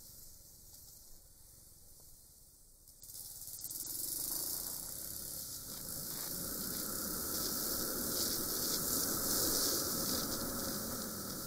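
Wind rush and road noise on a motorcycle-mounted dashcam microphone while riding: a low hiss at first, then a sudden jump about three seconds in to a loud, steady rushing noise as the bike gathers speed.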